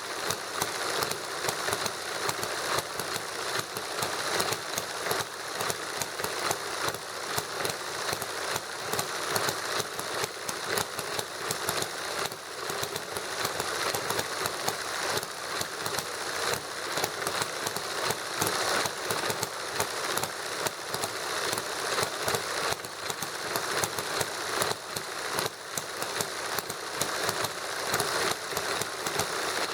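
Small kit-built model hit-and-miss gasoline engines running together: a fast, even stream of sharp little clicks and pops with hardly any deep tone.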